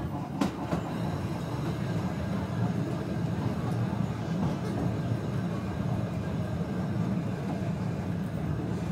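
Blackpool Balloon double-deck electric tram running along its track, heard from the driver's cab: a steady low rumble, with a single knock about half a second in.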